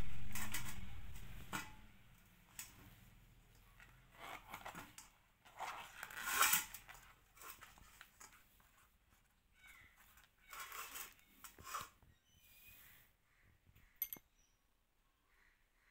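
Hands handling and peeling back the stiff, papery bracts of a banana flower: short bursts of crackling, rustling scrapes with pauses between them, the loudest about six and a half seconds in, and a sharp click near the end. It opens with a low hum that fades out over the first second and a half.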